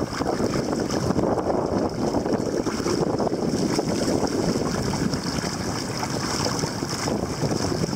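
Strong, gusty wind buffeting the microphone over choppy sea water lapping around a kayak.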